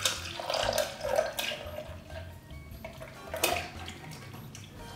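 Thick, warm syrup-and-plant-milk mixture pouring from a stainless steel saucepan into a glass measuring jug, streaming and splashing unevenly as the jug fills, with a brief louder burst about three and a half seconds in.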